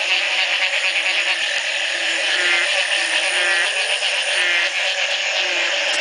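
Dense chorus of many frogs calling together, a steady din of overlapping calls: low swooping calls repeating about once a second under a shrill, pulsing trill, with rattling calls standing out about two and a half and three and a half seconds in. It is a breeding chorus set off by the first night of rain after a long drought.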